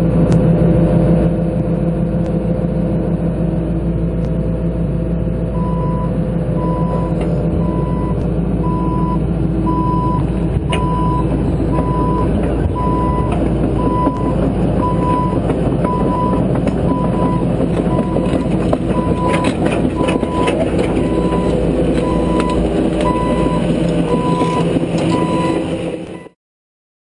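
John Deere 160C LC excavator's diesel engine running steadily, with a warning alarm starting about five seconds in and beeping about once a second.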